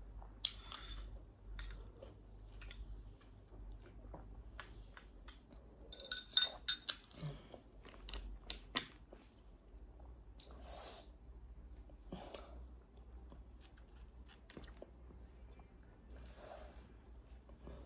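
A person chewing food close to the microphone. Short clicks and brief noisy bursts are scattered throughout.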